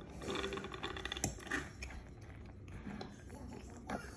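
Light clicks and taps of a live blue crab's legs and claws scrabbling on a wooden cutting board: a quick flurry in the first second, one sharper click just after, then scattered taps.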